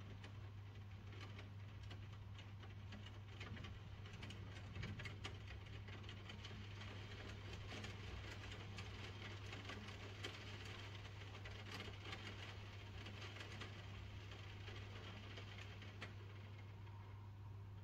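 Steady rain falling, with many small drop taps pattering close by, over a low steady hum.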